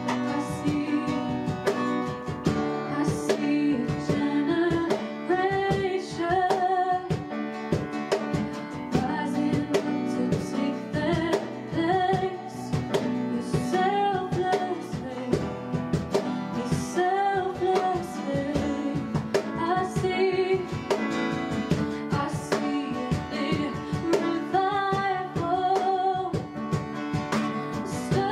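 Worship song: strummed acoustic guitar in an even rhythm, with a voice singing the melody over it.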